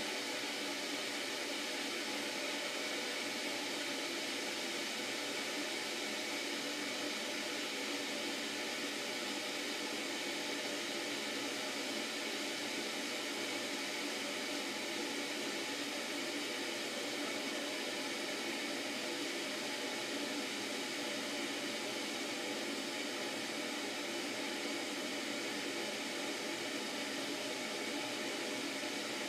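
Steady, even hiss with no distinct sounds standing out of it.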